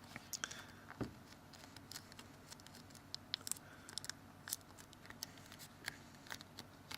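Light, scattered clicks and taps of a Samsung Galaxy S2's replacement screen and plastic frame being pressed down and handled by fingers, with one duller thump about a second in.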